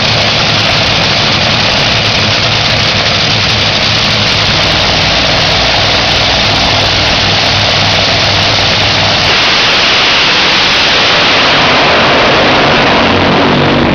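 Two supercharged, nitromethane-burning Top Fuel dragster Hemi V8s running at the starting line, a loud, harsh, steady rumble. About two-thirds of the way through, the low rumble gives way to a rising, noisier blast as the cars go to full throttle and launch down the track.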